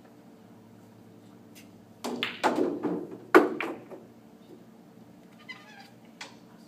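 Cue striking the cue ball, then a quick run of sharp clacks of pool balls hitting one another over about two seconds, the loudest about three and a half seconds in.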